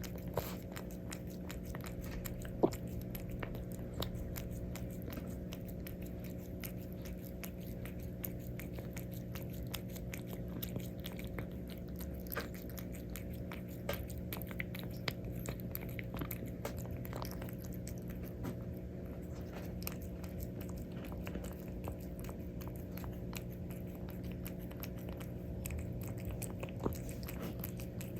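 A calico cat chewing and eating cat food, with a steady run of small crunching clicks and one louder click about two and a half seconds in.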